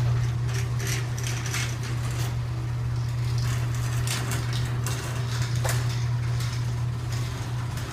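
LiftMaster ATS 2113X commercial chain-drive garage door opener running to close the door: a steady motor hum with irregular clicking and rattling from the chain and door.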